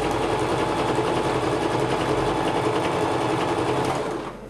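Home sewing machine running steadily at an even speed, stitching two strips of nylon fabric together; it stops about four seconds in.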